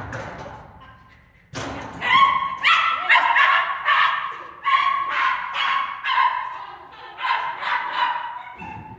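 A small dog barking in quick, high-pitched yips, about two or three a second, starting about two seconds in and continuing until near the end. A thud comes about one and a half seconds in, before the barking starts.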